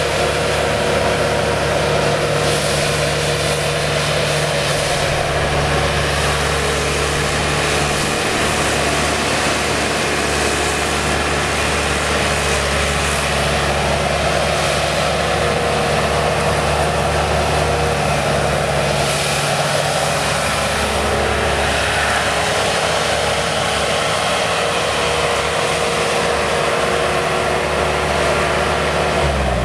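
Bobcat S250 skid steer's turbocharged diesel engine running steadily while the machine drives about.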